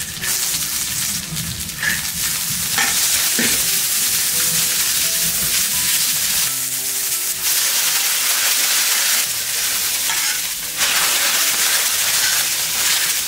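Garlic, ginger, chili and green onion sizzling in hot oil in a wok as a metal spatula stirs them. The sizzle is steady and gets louder near the end.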